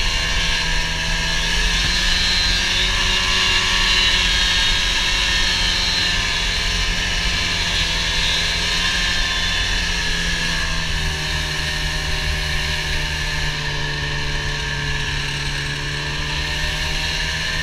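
Snowmobile engine running continuously while riding along a packed snow trail, its pitch wavering a little as the speed changes.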